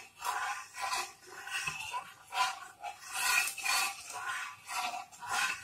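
A flat spatula rubbing and scraping over an oiled hot tawa, spreading the oil in repeated back-and-forth strokes, about two a second.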